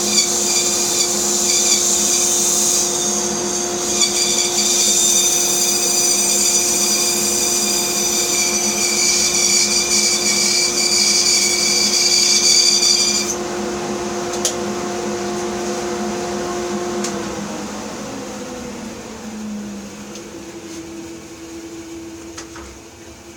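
Bandsaw running and cutting through a wooden block. The high cutting hiss stops abruptly about halfway through, and a few seconds later the motor is switched off, its hum falling in pitch as the saw coasts down.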